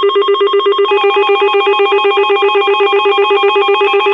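Electronic emergency alert tone that switches on abruptly and pulses rapidly like a ringing bell. About a second in, higher tones join and alternate back and forth in a warble.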